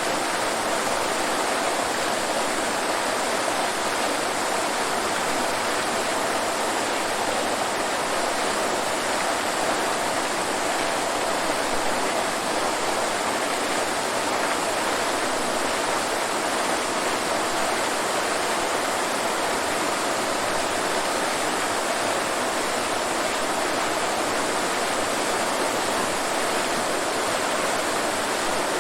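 Waterfall: falling water rushing steadily, with no change or pause.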